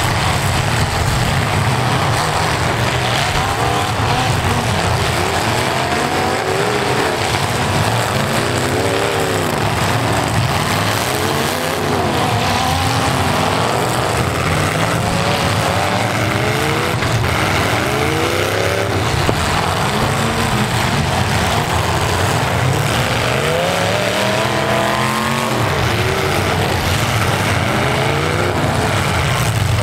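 Several V8 demolition derby cars' engines revving up and down together, their pitches rising and falling over and over as the cars push and ram. A single sharp knock comes about nineteen seconds in.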